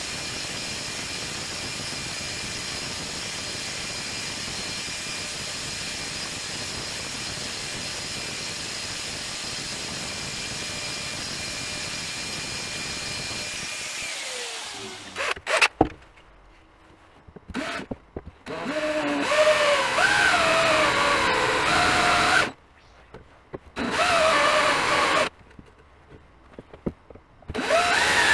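A grinding disc spins with a steady whine against rusty steel, then winds down with a falling pitch about 14 s in. After that a DeWalt cordless drill bores into the rusty blade in several runs of a few seconds each, its motor pitch rising and falling with the trigger.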